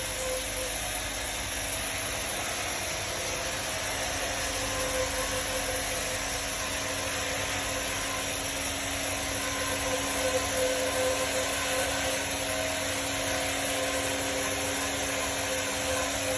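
Powered saw ripping a log lengthwise into a wooden post: a steady machine hum with a continuous cutting hiss that holds level throughout.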